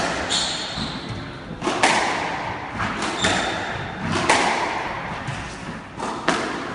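Squash rally: the ball cracks off the racquets and the court walls about once a second, each hit echoing in the enclosed court, with high squeaks of court shoes on the wooden floor twice.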